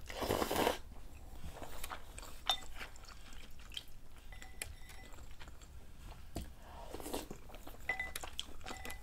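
Noodles slurped from a bowl of soup for under a second, followed by soft chewing. Wooden chopsticks and a wooden spoon then click and clink against a ceramic bowl, with a few short ringing taps in the second half.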